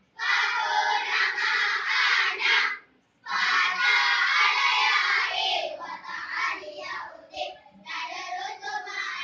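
A group of children singing together in loud phrases, with a brief pause about three seconds in; the singing turns softer and more broken in the second half.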